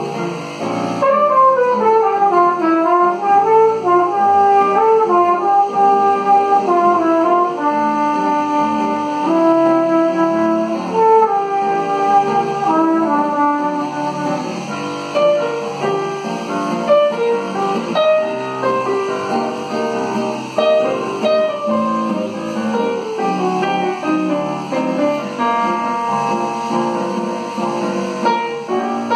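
Flugelhorn playing a melodic jazz line in bossa nova style, accompanied by nylon-string classical guitar and digital piano.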